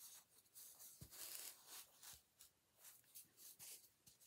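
Faint rustling and rubbing of a knit sock being pulled over a styrofoam egg, with a couple of soft bumps from handling.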